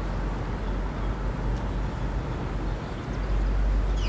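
Outdoor urban ambience: a steady low rumble with a hiss over it, a little louder from about three seconds in.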